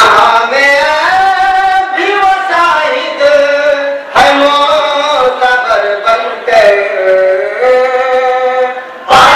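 Men's voices singing together in unison into a microphone, with long held notes that slide between pitches. Sharp, loud knocks break in at the start, about four seconds in and near the end.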